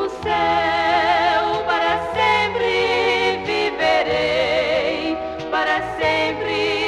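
Gospel music from a vinyl LP: a band with a bass line and a melody that wavers with vibrato.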